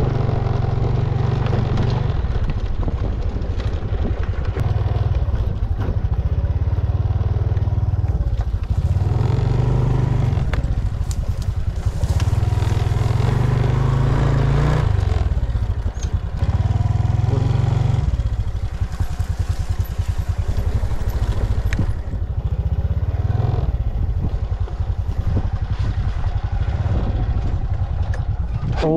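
Small motorcycle engine running while being ridden, its speed rising and falling.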